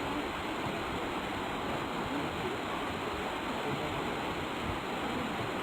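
Waterfall roaring steadily, an even rush of falling water.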